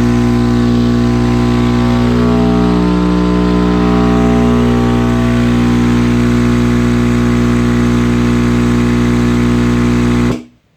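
Crossfire XS V4 15-inch subwoofer playing a very loud, steady low bass tone with many overtones, then cutting off suddenly near the end: the amplifier's draw trips the household circuit breaker.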